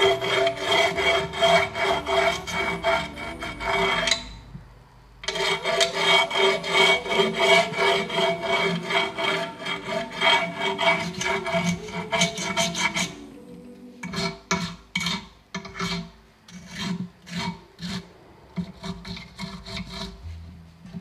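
A metal screwdriver shaft rubbed quickly back and forth along the edge of a scooter deck's grip tape, a rapid rasping scrape against the gritty surface. It stops for about a second around four seconds in, and in the last third the strokes come slower and one by one. Rubbing the edge creases the grip tape along the deck edge so it folds over and can be cut to shape.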